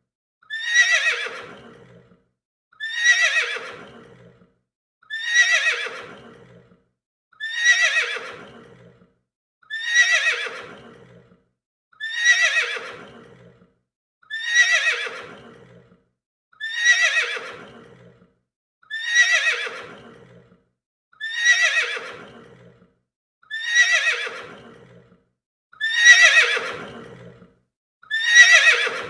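A horse whinnying, the same neigh repeated about every two seconds, about thirteen times. Each call is about a second and a half long and slides down in pitch, with a short silence after it.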